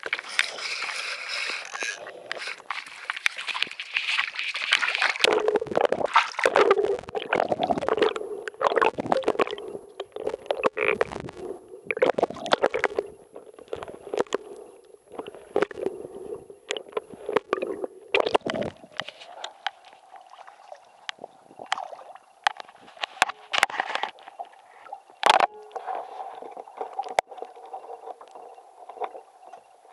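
Sea water sloshing and gurgling around a camera on a fishing line as it is dragged through the water and lifted out. Under it runs a steady hum, and there are scattered sharp clicks in the last part.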